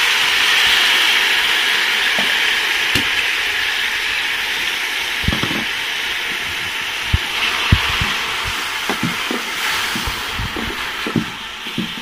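Chopped onions sizzling in hot ghee in an aluminium pot, the hiss loudest just after they go in and easing off a little. From about halfway, scattered knocks of a wooden spatula stirring against the pot.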